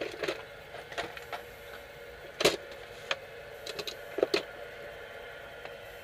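Tools and small parts knocking and clicking as a hand rummages through a plastic toolbox: scattered sharp knocks, the loudest about two and a half seconds in, then a quick run of clicks a little later.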